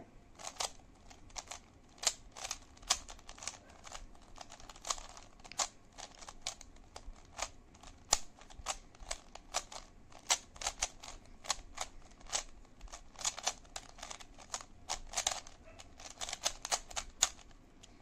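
Rubik's cube being scrambled: its plastic layers are twisted over and over, giving an irregular run of sharp clicks, about two to three a second.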